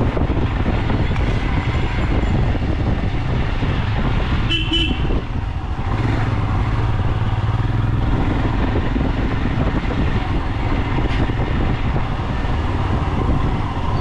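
Road traffic with a steady rumble of vehicle engines and one short horn toot a little past four seconds in.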